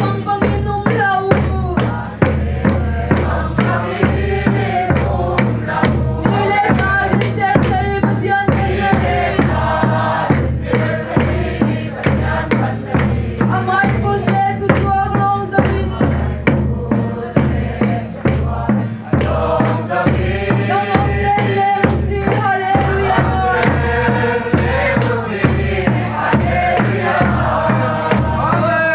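A mixed group of men and women singing a hymn together in unison, with a steady beat on a large hand-played drum beneath the voices.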